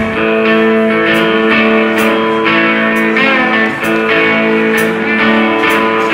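Live rock band playing: electric guitars ringing out sustained chords and notes over steady cymbal strikes from the drum kit.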